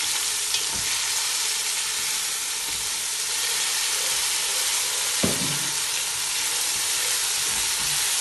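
Browned sliced onions and ginger-garlic paste sizzling as they fry in oil in a nonstick pot, stirred with a spatula. The spatula scrapes the pot and gives a clear knock about five seconds in.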